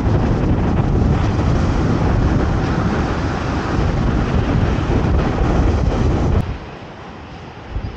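Strong wind buffeting the microphone over storm waves breaking and washing up the beach. About six seconds in it drops away abruptly to a much quieter rush of wind.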